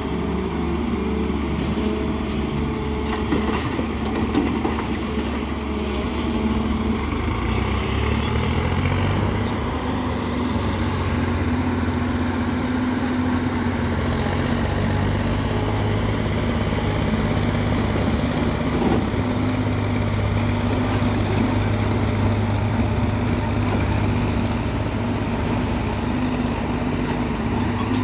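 JCB 205 crawler excavator's diesel engine running steadily under working load as the machine digs soil and swings its bucket. The engine note shifts a little during the first several seconds, then holds.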